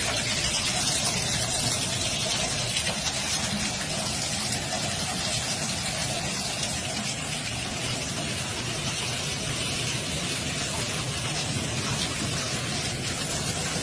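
Bathtub tap running, its stream pouring steadily into the tub near the drain with a continuous rush of water.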